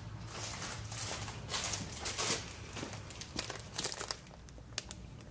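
A beeswax tack cloth being handled and unfolded, crinkling irregularly for about four seconds, then going quieter near the end.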